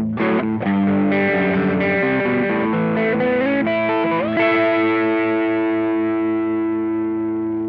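Overdriven electric guitar through an Ibanez Tube Screamer pedal: a few notes with string bends, then a chord struck about four seconds in and left ringing, slowly fading.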